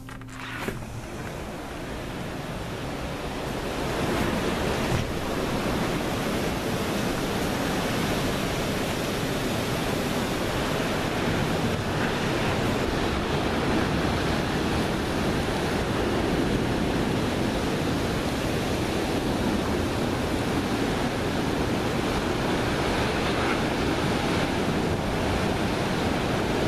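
Storm wind and heavy surf from approaching Hurricane Dorian: a steady roar of breaking waves and gusting wind, with wind buffeting the microphone. It builds over the first few seconds, then holds steady.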